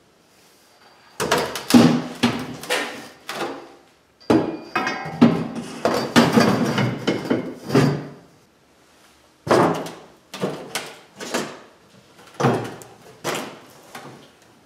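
Steel roll-cage main hoop knocking and clanking against a car's bare sheet-metal body as it is set into place, in irregular clusters of sharp knocks with short pauses between them.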